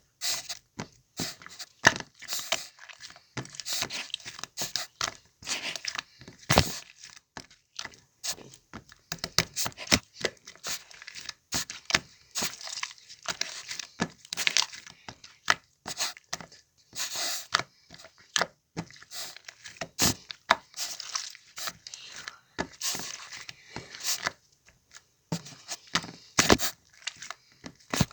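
Slime being squished, stretched and pressed by hand, giving a stream of irregular pops, clicks and crackles.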